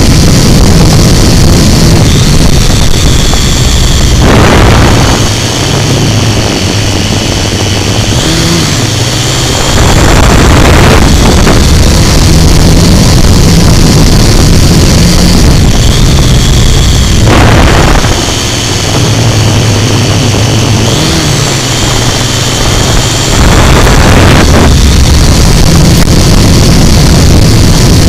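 Electric motors and propellers of a camera drone running close to the microphone: a steady high whine that wavers slightly in pitch. A rush of wind noise comes in for about a second every six or seven seconds.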